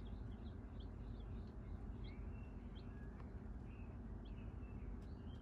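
Baby chicks and ducklings peeping: many short, high peeps, several a second, some of them falling in pitch, over a steady low hum.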